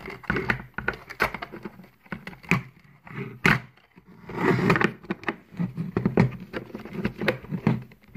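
Plastic parts of a Schleich toy pickup truck being handled while its wheels are fitted onto the axles: irregular light clicks and knocks, with one sharp knock near the end.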